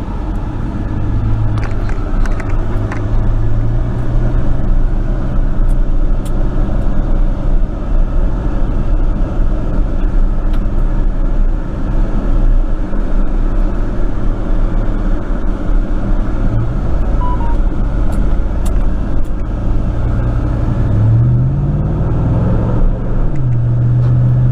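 A 1999 Chevrolet pickup driving, heard from inside the cab: steady engine and road drone. Near the end the engine revs climb as it accelerates, then fall back as the transmission shifts up.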